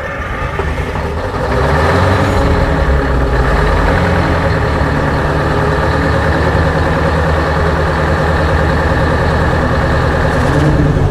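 The Big Bud 16V-747 tractor's 16-cylinder two-stroke Detroit Diesel engine running. It rises in pitch and gets louder about one and a half seconds in, then runs steadily.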